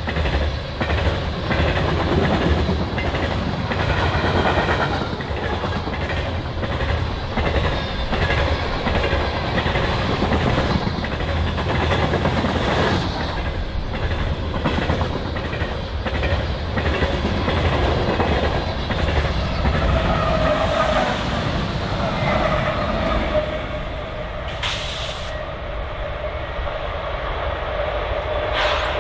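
Freight train of covered hopper cars rolling past, its wheels clicking over the rail joints in a steady rhythm. About two-thirds in a steady whine joins the rumble, and two short sharp hisses come near the end.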